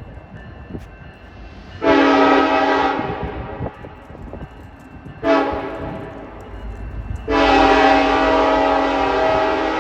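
Union Pacific freight locomotive's multi-chime air horn sounding three blasts, long, short, long, over the low rumble of the passing train: the end of the long-long-short-long grade-crossing signal.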